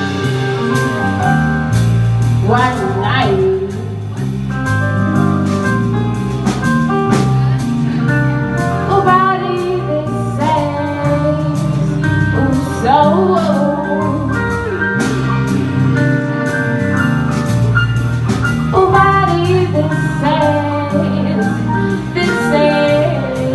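A band playing live: a voice singing over guitar, with a steady beat of drum hits.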